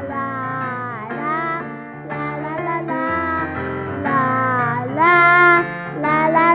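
A children's song: a child's voice singing a melody over instrumental accompaniment, with one louder held note about five seconds in.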